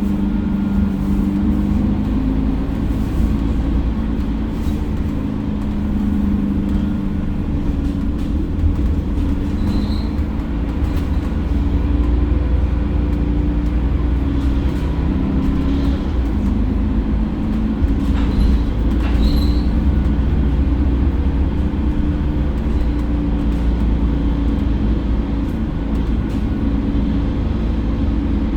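Mercedes-Benz OC500LE city bus under way, its engine giving a steady low drone, with scattered clicks and knocks and a few brief high squeaks, such as interior rattles.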